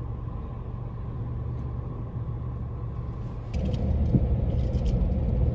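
Car engine and road rumble heard from inside the cabin, a low steady rumble that gets louder about three and a half seconds in, with a faint steady tone and a few light clicks after that.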